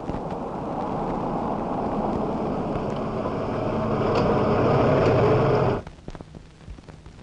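A car approaching on the road, its engine and tyre noise growing steadily louder, then cutting off abruptly about six seconds in.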